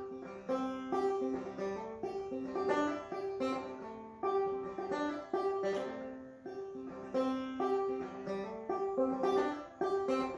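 Clawhammer banjo played solo, an instrumental break of an old-time tune: a steady rhythm of plucked notes, each struck sharply and ringing briefly.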